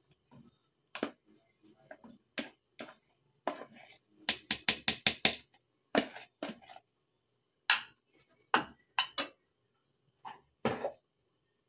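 Sharp knocks of a utensil and container against a metal pan as cooked rice is scooped and shaken into it, with a quick run of about seven taps in the middle and single knocks before and after.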